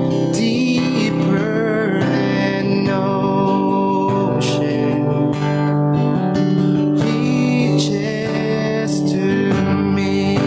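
A man singing a worship song, accompanied by his own strummed acoustic guitar.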